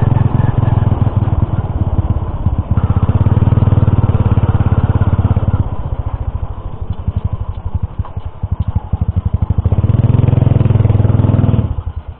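Small single-rider motorcycle engine running under way, heard from the handlebars: steady and loud, easing off in the middle so that slower separate firing pulses come through, then picking up again before cutting off abruptly near the end as the bike stops.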